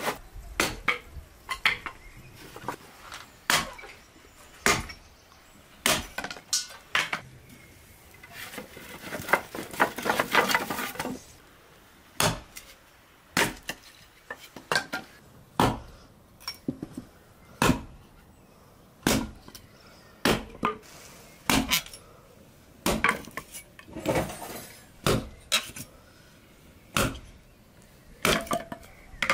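Hatchet strokes on sticks held against a wooden chopping block, cutting points onto them to make stakes: sharp chopping knocks at an uneven pace of about one a second. A busier stretch of rapid knocks and clatter comes about a third of the way in.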